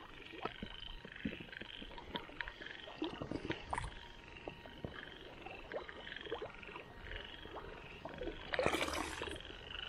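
Frogs calling in a continuous pulsing chorus, with scattered soft rustles and taps from walking through wet grass and a louder rustle near the end.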